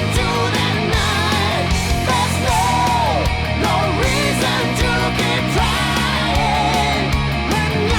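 Heavy metal music, played loud and dense, with a lead melody that bends and wavers in pitch over it.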